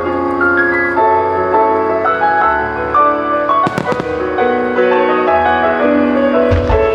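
Music with a melody of held, stepping notes plays throughout, over aerial fireworks: one sharp firework burst a little under four seconds in and a low boom near the end.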